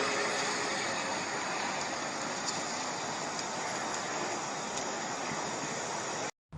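A steady rushing, rumbling noise, with faint droning tones dying away at the start; it cuts off abruptly near the end.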